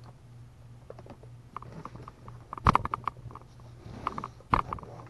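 Cardboard subscription box being handled and opened: scattered taps, scrapes and rustles, with two louder knocks, one about halfway through and one near the end.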